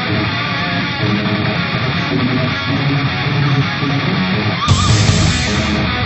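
Rock-style background music with electric guitar, steady throughout, with a short whooshing change about five seconds in.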